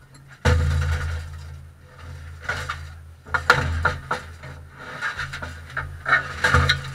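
Irregular knocks, rubbing and rattles inside a compact race car's cockpit, over a low steady hum that starts suddenly about half a second in.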